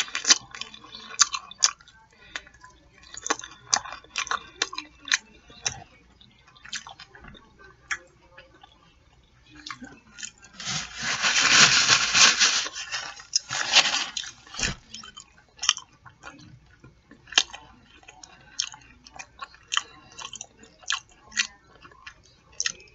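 Close-up eating sounds of fried chicken wings: chewing and sucking on the meat and bones, with scattered wet mouth clicks and smacks. About ten seconds in comes a few seconds of dense paper-napkin rustling, the loudest part, followed by a single knock.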